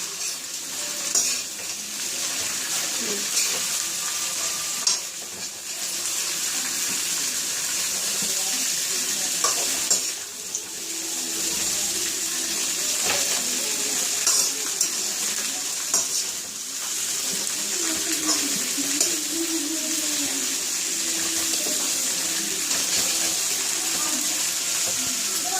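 Broad beans frying over a high gas flame in hot oil with garlic and chillies, sizzling steadily, with a spatula stirring and tapping against the pan now and then.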